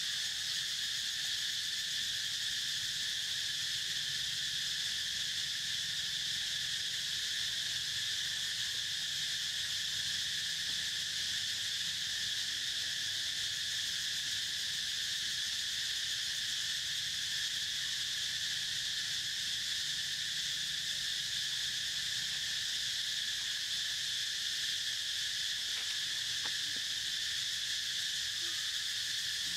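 Steady, unbroken high-pitched chorus of insects.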